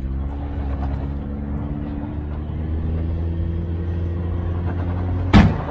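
2024 Toyota Tacoma's engine running steadily, heard from beneath the truck. A single sudden loud thump comes near the end.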